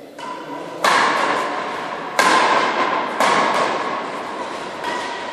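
Badminton rackets striking the shuttlecock during a fast doubles rally: three sharp cracks about a second apart and a fainter one near the end, each ringing out in the echo of a hard-walled hall.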